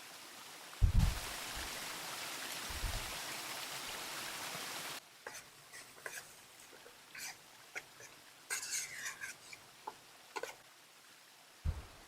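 Steady rushing of river water with two low thumps, cutting off abruptly about five seconds in. A quieter stretch of scattered small clicks and crackles follows.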